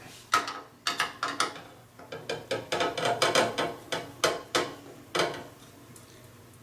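Number two Phillips screwdriver backing screws out of a NAS's plastic case: a run of irregular sharp clicks and ticks, thickest about three seconds in.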